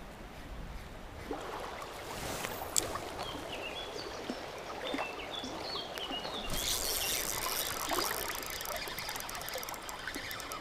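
Rushing river water while a spinning reel is cranked to wind in a hooked trout, with a few bird chirps; the water noise gets louder about two-thirds of the way in.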